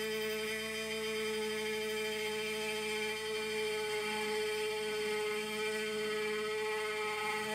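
CNC machine spindle running with a small end mill cutting a groove along a metal bar: a steady whine with one strong tone and fainter higher ones, unchanging in pitch.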